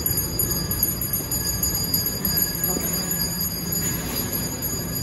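Background music, playing steadily without a break.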